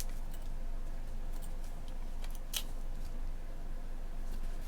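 A few faint clicks and light taps from handling planner paper and stickers at a desk, the clearest about two and a half seconds in, over a steady low hum.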